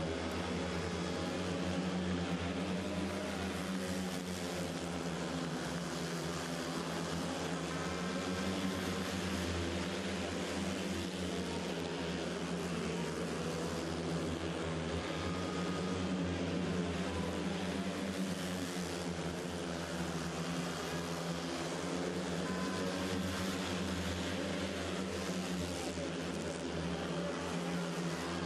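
Four speedway motorcycles racing, their 500cc single-cylinder methanol engines running hard in a dense, continuous drone.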